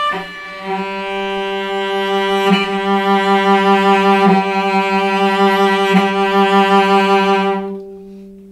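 A cello bowing one long, steady note with rich overtones, with brief marks about every second and a half where the bow changes direction; the note fades away near the end. The left-hand finger holds the string with the least weight that still gives a complete, clear note rather than a whistling or breaking one.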